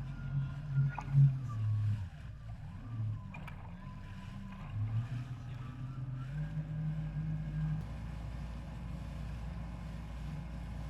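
Jet ski engine running, its pitch rising and falling with the throttle, then holding steadier and a little higher from about six seconds in.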